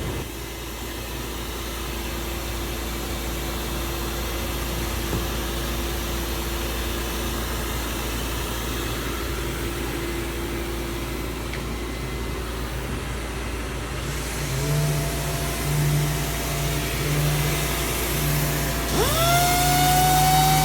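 Robotic sanding machine running with a steady motor hum. About two-thirds of the way through a second tone joins in, and near the end a sander motor spins up with a rising whine that then holds steady.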